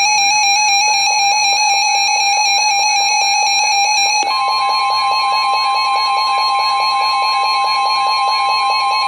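Electronic weather-radio emergency alert tones signalling a severe thunderstorm warning: a loud steady tone with a pulsing pattern repeating a few times a second, joined about four seconds in by a second, higher steady tone.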